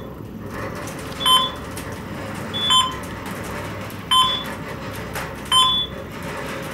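Schindler elevator car travelling down, with a short electronic beep about every second and a half, one for each floor passed, over the steady rumble and hum of the moving car. Four beeps.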